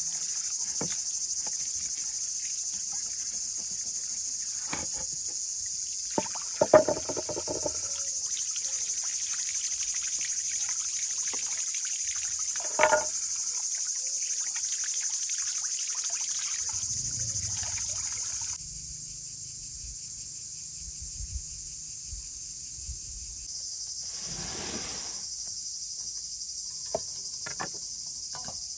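Water from a garden hose running and splashing while a fish is rinsed under it, with a steady high shrill of insects over everything and two louder knocks. About two-thirds of the way through the water sound stops; the insects go on, with a low rumble and a few light clicks.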